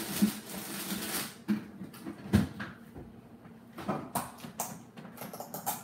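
Household handling noises: a rustling hiss in the first second or so, then scattered knocks and clicks of containers being moved and handled, with a quick run of clicks near the end.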